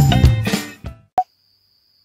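Intro music with drums and a steady beat fades out within the first second. A single short click follows, then near silence with only a faint, high, steady tone.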